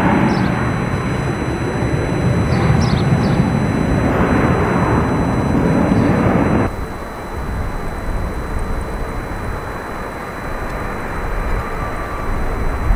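Airbus Beluga XL's two Rolls-Royce Trent 700 turbofans at takeoff thrust as the aircraft climbs out, a loud jet rumble. About seven seconds in it cuts abruptly to the quieter jet noise of the Beluga XL on final approach at low power.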